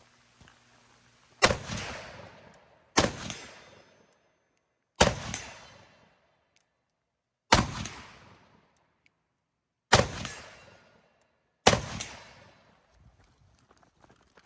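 Six rifle shots fired one at a time at an irregular pace, one to two and a half seconds apart, each followed by a short decaying echo.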